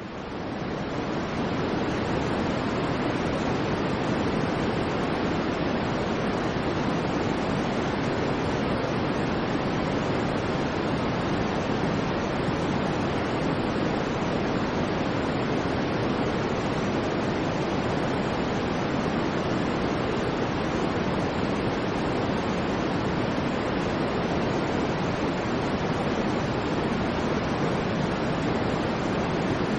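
Steady synthesized white noise, a smooth unchanging hiss weighted toward the lower tones, fading in over about the first second.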